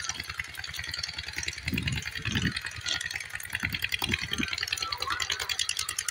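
Rapid, even mechanical rattling, with low thumps about two and four seconds in.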